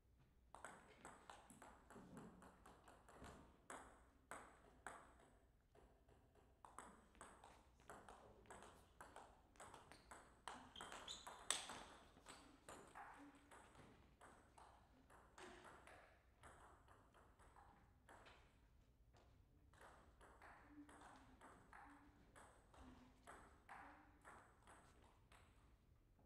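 Table tennis rallies: the ball knocking back and forth between the rubber bats and the table in quick, irregular runs, with short pauses between points. One sharper, louder hit comes about eleven and a half seconds in.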